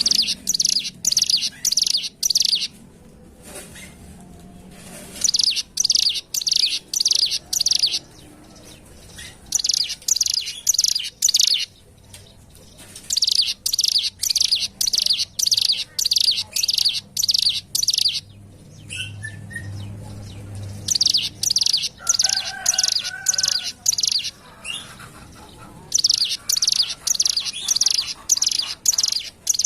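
Ciblek gunung, a mountain prinia, singing in repeated bursts of rapid, high, buzzy notes. Each phrase lasts two or three seconds, with short pauses between.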